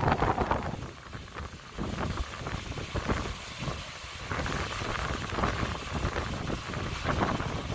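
Gale-force storm wind buffeting a smartphone microphone in irregular gusts, with a rumble in the lows.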